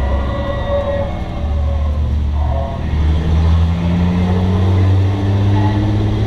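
Bomber-class race car's engine heard from inside its stripped cabin, running loud and steady on the track. It eases off about a second in, then climbs in pitch as it pulls harder from about three seconds in.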